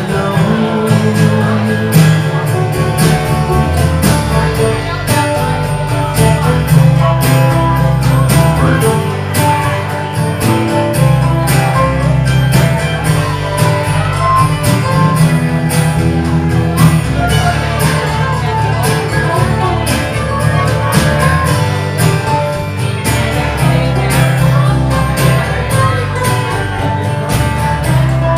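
Live acoustic band playing an instrumental break: guitar and bass carry the rhythm under a plucked-string lead melody.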